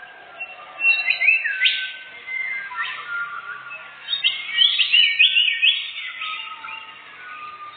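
Songbird singing a varied run of clear whistled notes that sweep quickly up and down, loudest in two spells about a second in and about four seconds in.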